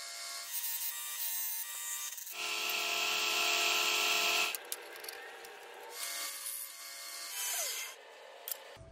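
WEN 1×30-inch belt sander running with a steel chisel's bevel ground against the belt: a steady motor whine under a scraping hiss. It is loudest from about two to four and a half seconds in, eases, swells again, then dies away near the end.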